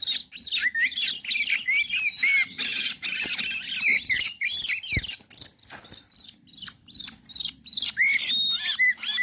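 Oriental magpie-robin song: a rapid, continuous run of varied whistles, chirps and slurred notes. A single sharp click comes about five seconds in.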